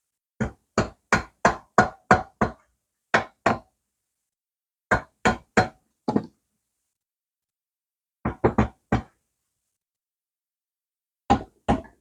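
Repeated hammer blows in quick bursts of two to seven, knocking on a stuck cylinder to free it from the Moto Guzzi V-twin's crankcase.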